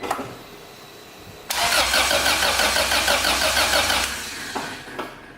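Acura Integra engine cranking on its starter, jumped directly at the starter, turning over evenly for about two and a half seconds and never catching: there is no spark at the plugs or coil. It begins about a second and a half in and cuts off abruptly.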